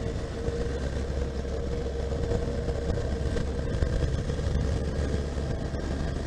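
Honda CB1300SF's inline-four engine running steadily under way on the road, with a low rumble from the motorcycle in motion.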